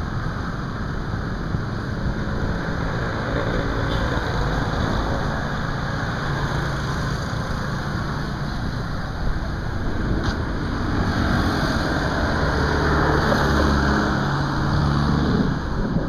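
Road traffic from cars and motorbikes passing along a beachfront street, a steady rumble; one engine grows louder over the last few seconds as a vehicle passes close by.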